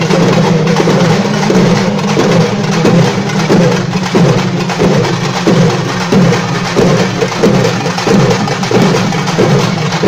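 Tamil festival drum troupe playing together: laced barrel drums and round frame drums beaten with sticks in a fast, steady rhythm, with strong beats coming about one and a half times a second over a dense run of stick strokes.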